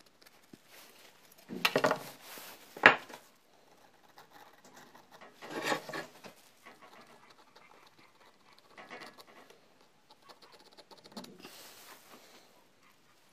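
Hands handling a square steel tube and a tape measure on a workbench: scraping and rubbing, with one sharp click or knock a little under three seconds in, and a few fainter scrapes after.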